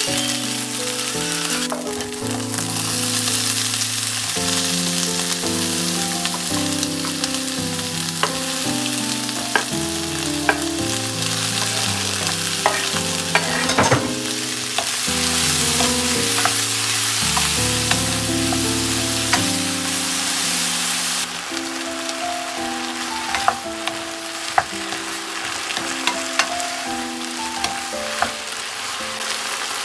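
Food sizzling in a non-stick frying pan: konnyaku strips, then diced potato, carrot and fried fish cake, stir-fried with a wooden spatula that clicks and scrapes against the pan. Soft piano music plays over it, and the sizzle changes abruptly about two-thirds of the way through.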